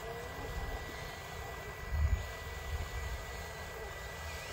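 Wind buffeting the microphone: an uneven low rumble that swells in a gust about two seconds in, with a faint steady high-pitched whine underneath.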